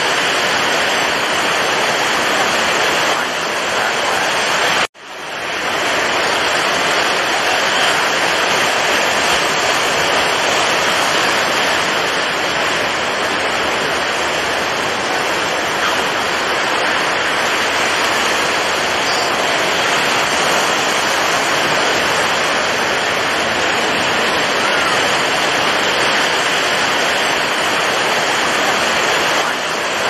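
Rough sea with breaking waves, a loud, steady, dense rush of water noise. It cuts out abruptly about five seconds in and swells back within about a second.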